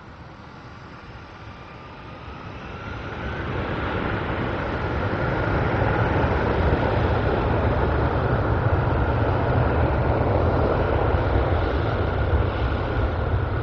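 Jet engines of a Boeing 747-400 freighter growing louder over a few seconds, with a faint rising whine, then running at a steady loud rumble and hiss.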